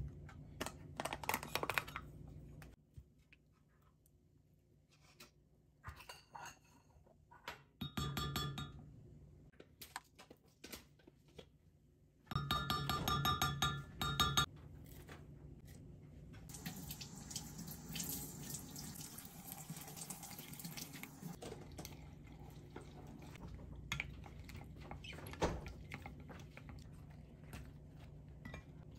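Kitchen food-prep handling sounds: a wooden spoon scooping and scraping thick paste into a glass measuring cup, with scattered knocks and clinks of dishes and two short ringing clinks. A few seconds of steady noise come about midway.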